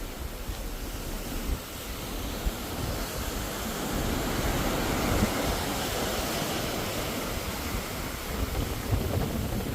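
Ocean wash and wind heard from a cruise ship at sea, with wind rumbling on the microphone; the rush of water grows a little louder about four seconds in.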